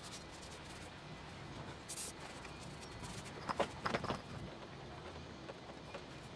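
Handling noise from work in a car's engine bay: a brief hiss about two seconds in, then a few knocks and clicks a little after three and a half seconds, over a steady background hiss.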